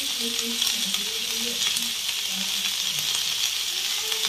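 Chopped onion and capsicum frying in hot oil in a kadhai: a steady sizzle, with a metal spatula stirring them.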